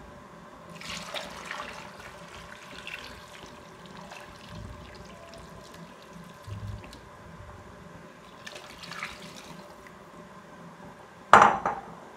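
Water poured from a glass jug into a pot of diced red onion and pumpkin, splashing in two spells. Near the end comes a single loud knock.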